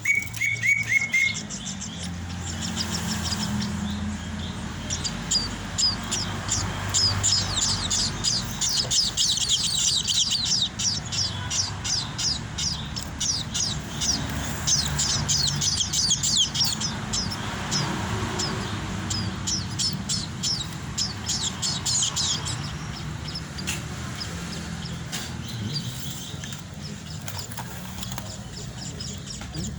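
Munia nestlings giving rapid, high-pitched begging chirps in quick runs while being hand-fed. The chirping starts a couple of seconds in and fades out about two-thirds of the way through, over a steady low hum.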